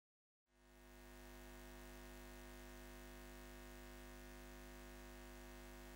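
Faint, steady neon-sign buzz: an electric hum of many fixed tones that fades in about half a second in.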